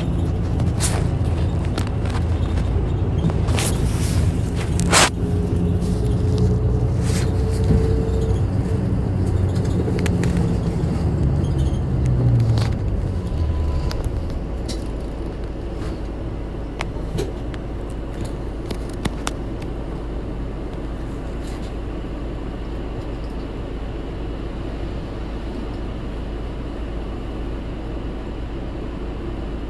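An Isuzu Erga Mio city bus's diesel engine heard from inside the bus while it runs along, with a sharp click about five seconds in. Around twelve seconds in the engine note falls as the bus slows, and after that it drops to a quieter, steady low rumble.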